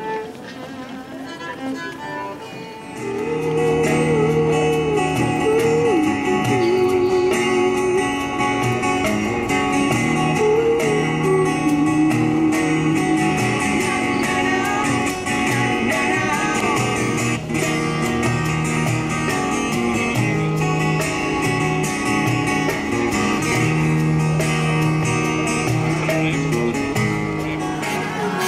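Acoustic music played on string instruments: a plucked guitar under a wavering melody line, getting louder about three seconds in.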